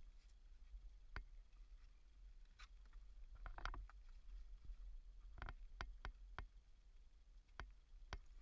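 Faint, irregular clicks and knocks, about nine of them with a small cluster near the middle, over a steady low rumble.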